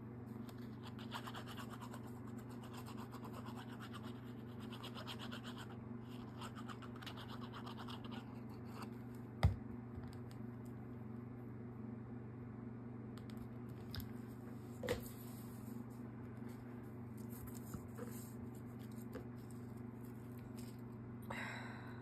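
Rapid back-and-forth scratching or rubbing on card during craft work, going for several seconds and then stopping, followed by a sharp knock on the table about nine and a half seconds in and a few lighter clicks. A steady electrical hum runs underneath.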